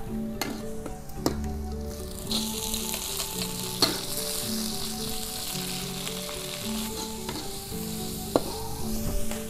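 Garlic, shallots and chilies sizzling in hot oil in a stainless steel wok, with a metal spatula clinking and scraping against the pan. About two seconds in, shredded papaya flowers go into the wok and the sizzling grows louder and hissier.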